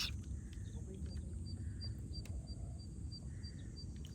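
Outdoor summer ambience beside a pond: a steady high insect drone over a low rumble of wind on the microphone, with a short high chirp repeating about three times a second from about a second in, and a single sharp click at the very start.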